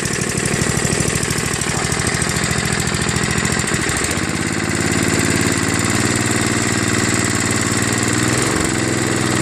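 5 hp Tecumseh horizontal-shaft snowblower engine running steadily just after starting on its newly fitted replacement carburetor and primer bulb, started with the choke open. Its speed shifts about four seconds in and wavers briefly near the end.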